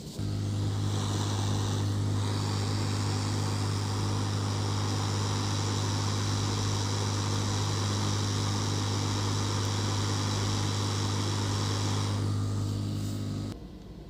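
Hot air rework station blowing steadily, a strong electrical hum under a rushing hiss of air, as the shorted capacitor is heated off the laptop motherboard. It switches on right at the start and cuts off sharply near the end.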